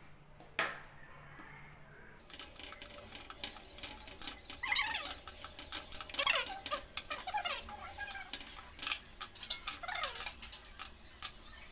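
Kitchen knife chopping and shaving a dark chocolate bar on a ceramic plate: quick clicks and scrapes, with the blade squeaking against the plate a few times in squeaks that fall in pitch. A single crack comes about half a second in, as the bar is snapped apart.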